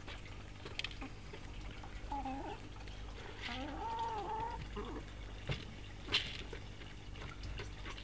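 Pet rabbits nibbling pellets from an open hand, with small crunching clicks and rustles. A wavering pitched call sounds twice around the middle.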